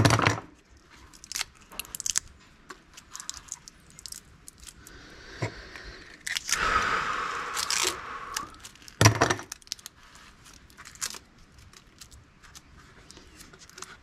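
Small microwave motors being pulled apart by hand with side cutters: metal clicks, scrapes and rattles of the parts, with sharp clicks at the start and about nine seconds in and a longer tearing, rasping sound about halfway through.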